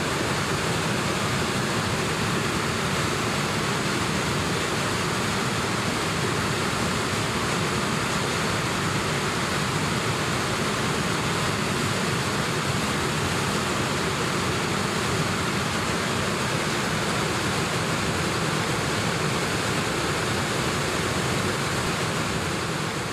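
Steady rushing of heavy whitewater at a big standing wave on the Kootenay River (Brilliant Wave), an even, unbroken wash of water noise that begins to fade out near the end.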